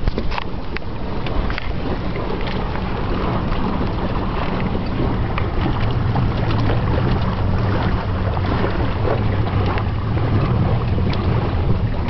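Wind buffeting the microphone over water rushing along the hulls of a Hobie 18 catamaran under sail, with scattered small clicks and slaps throughout.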